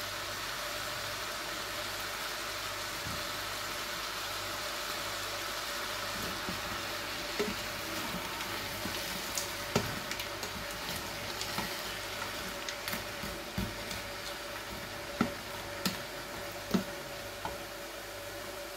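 Wooden spoon stirring frozen diced vegetables in a steel stockpot, with scattered knocks and scrapes against the pot from about seven seconds in. Underneath is a steady hiss with a faint steady hum.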